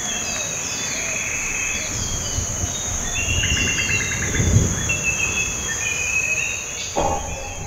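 Steady high-pitched drone of insects with birds chirping over it, short falling calls and quick repeated notes. A low rumble swells briefly around the middle.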